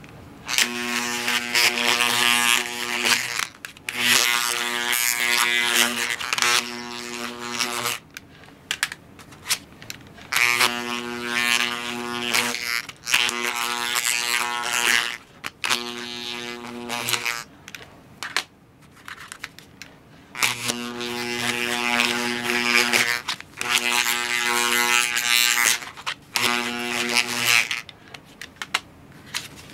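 Radio Shack high-power video/audio tape eraser, an AC bulk eraser, buzzing in about nine bursts of one to four seconds with short pauses between. It is wiping used 3.5-inch floppy disks clean of residual magnetism to clear their bad sectors.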